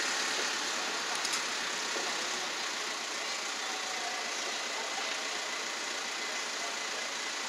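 London Overground Class 378 electric train running in towards the platform: a steady rumble of wheels on rail and traction equipment. A faint, thin, high steady tone comes in about three seconds in.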